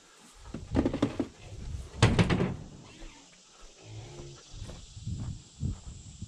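Pigs grunting in a few short bursts, the loudest about two seconds in.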